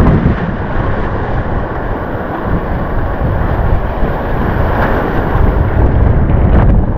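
Loud wind buffeting the microphone over the rushing wash of breaking whitewater around the board.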